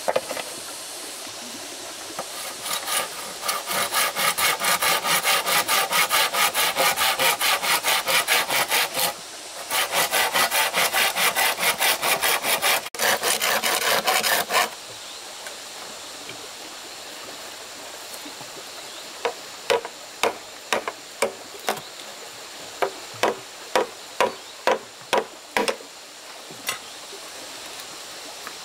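Hand saw cutting through wood in rapid, even strokes, with a short pause partway, stopping after about twelve seconds. A few seconds later comes a run of separate sharp knocks.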